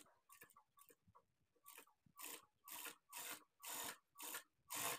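Fabric being sewn on an electric sewing machine: faint clicks, then a regular run of short, scratchy sounds about twice a second that grow louder from about a second and a half in.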